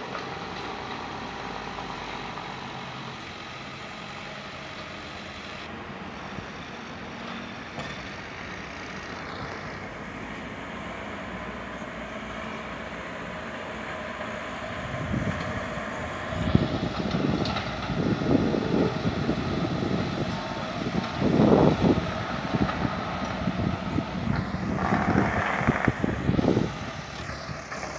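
Diesel engine of sewer-installation machinery running steadily; from about halfway, irregular louder knocks and clatter join it.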